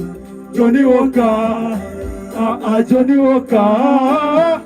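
A man singing long, wavering melodic notes over a music backing track.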